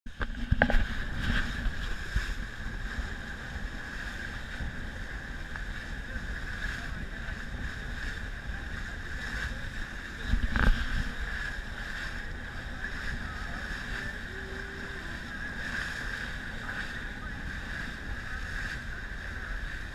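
Tour boat under way: its engine runs steadily under wind on the microphone, with two heavier thumps, about half a second in and about ten and a half seconds in.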